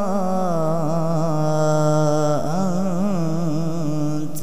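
Solo male voice reciting the Quran in the drawn-out melodic tilawat style, holding long notes with rapid wavering ornaments. The pitch steps down slightly about a second in, with one brief break about two and a half seconds in.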